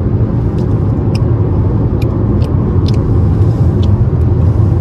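Steady road noise inside a Honda car's cabin at highway speed, a low rumble of tyres and engine, with a few faint light clicks over it.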